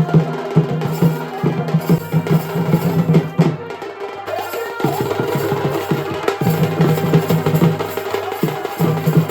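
Drum-led music with fast, dense drumming and a pitched instrument holding long low notes in phrases, typical of the live drum accompaniment to a Purulia chhau dance.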